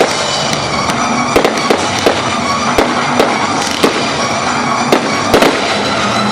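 Fireworks going off: about ten sharp bangs at irregular intervals, some in quick pairs, over steady music.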